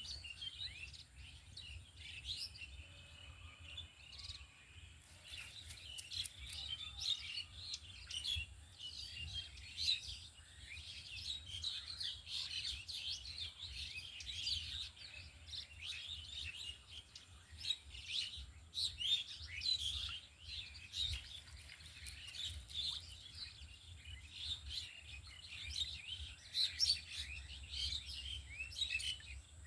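Many small birds chirping and tweeting continuously, their calls overlapping, over a low rumble.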